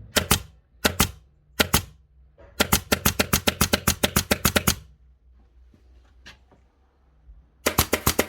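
Repaired Basso 23-gauge headless pin nailer firing: a few single sharp shots, then a fast string of shots about six a second with the trigger held down, showing it now fires repeatedly.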